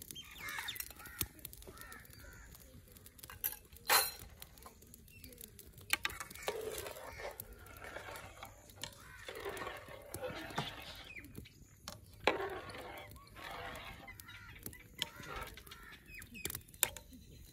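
A metal ladle knocking sharply against an aluminium cooking pot several times while stirring, the loudest knock about four seconds in, with birds calling in the background.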